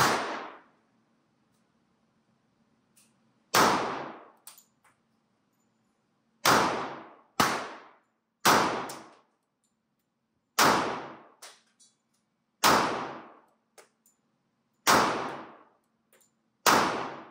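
Colt Defender .45 ACP pistol fired nine times at an unhurried pace, about one to three seconds between shots, each shot ringing out briefly in the range, with small ticks after several of them.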